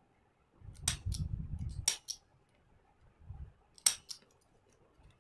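Small handheld stapler snapping shut through paper glued on cardboard: three sharp clicks, about one and then two seconds apart, each followed by a lighter click as the stapler springs back. Low rustle of the card being handled around the first two.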